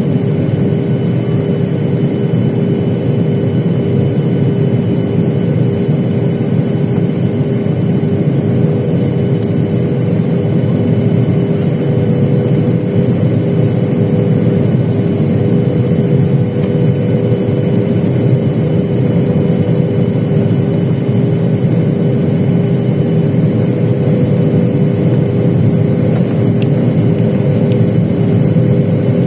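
Steady cabin noise heard inside a Boeing 737-800 near a window seat: the drone of its CFM56 turbofan engines and rushing airflow, with two steady humming tones over the low rumble and no change in level.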